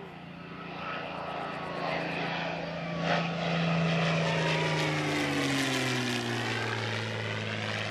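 P-51D Mustang's Packard Merlin V-12 engine in a flypast. The propeller-engine drone grows louder as the aircraft approaches, then drops in pitch as it passes and moves away.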